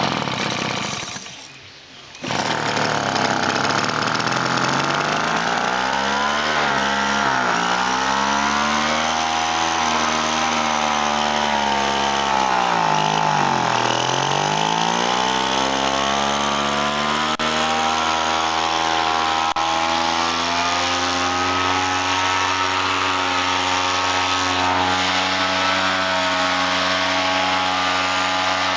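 Small two-stroke Kawasaki KT12 engine of a Flymo hover mower running: it dies down briefly about a second in, picks up again about two seconds in, then runs with its speed dipping and recovering twice before settling to a steady speed.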